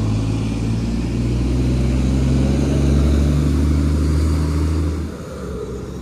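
Low engine rumble of a road vehicle going by on the avenue, swelling about halfway through and dropping away near the end.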